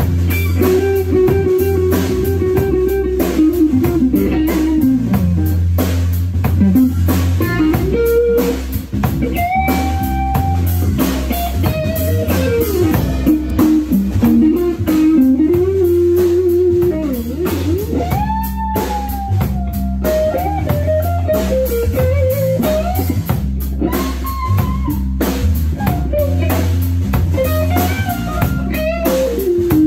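Live blues-rock band playing: an electric guitar lead line of held notes with string bends over bass guitar and a drum kit.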